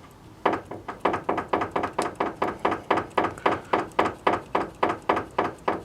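Kia Picanto steering rack knocking in a quick, even run, about four or five knocks a second, as the steering is rocked back and forth. The knock comes from play in the rack itself, whose bushings are worn, not from the tie rods.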